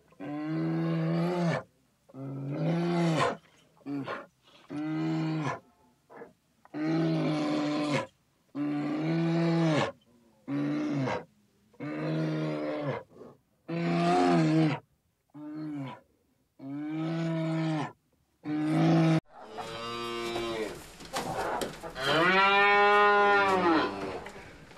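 Cattle mooing: a run of short calls about a second long with brief pauses between them, then, over steady background noise, a longer moo that rises and falls in pitch near the end.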